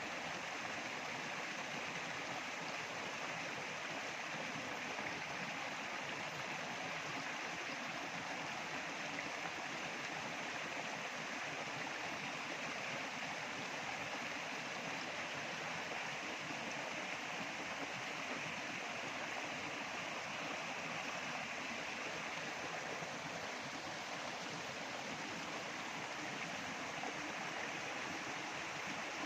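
Running water flowing steadily, an even rush with no breaks.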